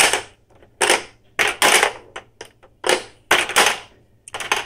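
Sharp, irregular plastic clacks of a Screwball Scramble marble-maze toy being played, as its buttons and levers are worked and the steel ball knocks through the obstacles. A quick run of small clicks comes near the end.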